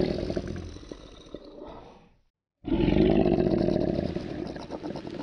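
Crocodile growling: two long, deep, rough calls. The first fades out about two seconds in and cuts to sudden silence. The second starts abruptly a moment later and slowly tapers off.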